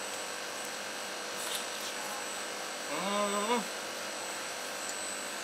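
Steady hum of a kitchen exhaust hood. About three seconds in, a person eating makes one short hummed 'mmm' that rises at the end.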